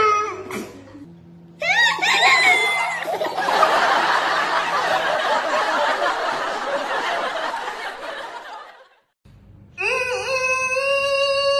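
A man laughing in high, wavering bursts, then a room full of people laughing together for several seconds. After a short break, a single voice holds one long high note.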